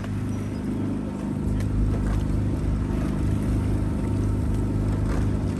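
Outboard motor of the boat carrying the camera running steadily at cruising speed while keeping pace with rowing shells. A few faint clicks sound over it.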